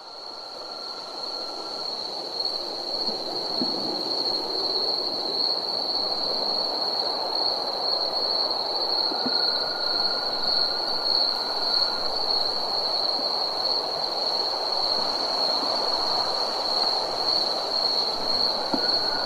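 Night chorus of crickets: one continuous high-pitched trill with a fine flutter. A lower steady note comes and goes for a couple of seconds at a time over a soft hiss. The sound fades in at the start.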